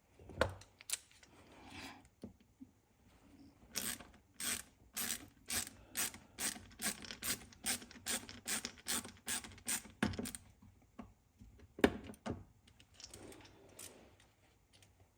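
Hand ratchet clicking in an even run, about two to three clicks a second, as a bolt on the chainsaw's bucking-spike mount is turned, with one sharper metal knock near the end.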